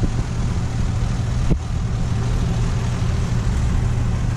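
A 1953 Studebaker pickup's six-cylinder engine idling steadily, with one short knock about a second and a half in.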